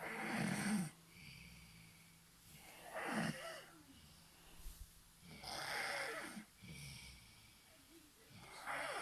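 Snoring: four snores, one about every three seconds.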